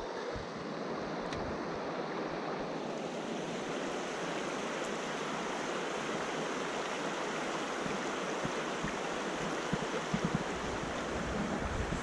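Mountain stream running over a shallow stony riffle: a steady rush of water, with a few soft low thumps near the end.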